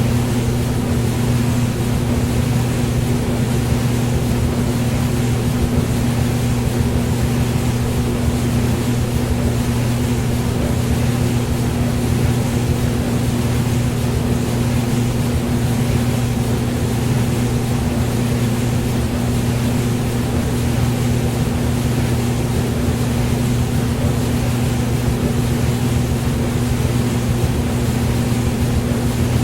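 Hair dryer running steadily: a constant motor hum with its airflow hiss, unchanging throughout.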